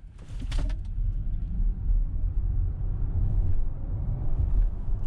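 Inside the cabin of a Volkswagen ID.4 1st Max electric SUV accelerating hard from a standstill at full pedal. A low rumble of road noise from its winter tyres builds quickly in the first second and then stays loud as speed climbs.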